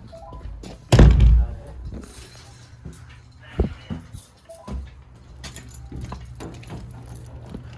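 A loud thump about a second in, followed by a few lighter knocks and clicks over a steady low hum.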